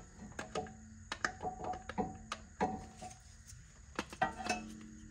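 Light metallic clinks and knocks of brake parts and tools being handled as the caliper and pads are fitted back together, some strikes leaving a brief ring.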